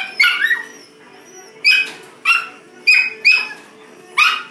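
Yorkshire terrier puppies yipping while they play-fight: about seven short, high-pitched yips that come at uneven intervals.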